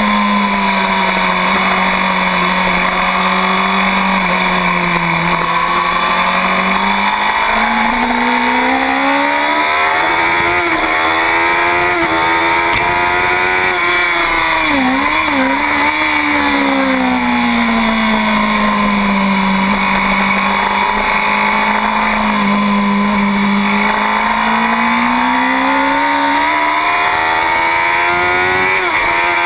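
2009 Honda CBR1000RR superbike's inline-four engine running hard, heard from on board, its pitch climbing and falling over a few seconds at a time as the rider accelerates and slows, with a quick dip and recovery about halfway through. Wind rush runs under it throughout.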